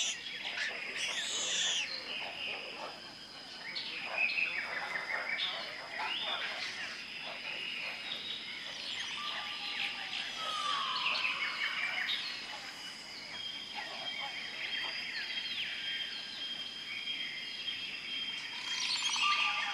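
Amazon rainforest ambience: many birds calling and chirping at once, some calls sliding downward in pitch, over a steady high-pitched whine, with a second steady tone joining about two-thirds of the way in.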